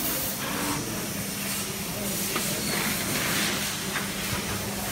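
Fiber laser cutting machine cutting metal plate: the assist gas hisses from the cutting-head nozzle, swelling and easing, over a steady machine hum.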